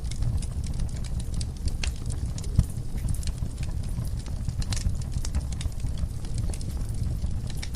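Wood fire burning in a fireplace: a steady low rumble with frequent sharp crackles and pops, one pop louder than the rest about two and a half seconds in.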